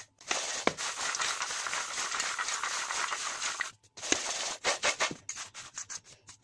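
Unpeeled garlic cloves being rubbed by hand in a steel tray, their dry papery skins rustling and the cloves scraping over the metal as the skins come loose. The rubbing is continuous for about three and a half seconds, then, after a short pause, turns into a run of shorter separate strokes.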